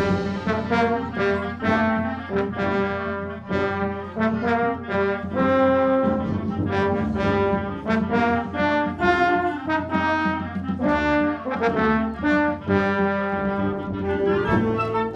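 Wind band playing, the brass section to the fore, a passage of many short, separated notes.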